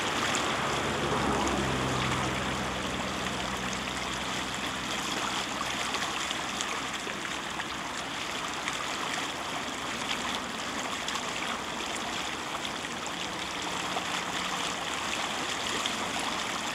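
Swollen floodwater in a canal rushing past the bank in a steady, even wash.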